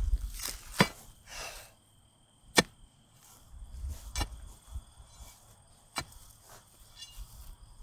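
A heavy metal hand tool striking hard, about six sharp blows one to two seconds apart, the loudest about a third of the way in.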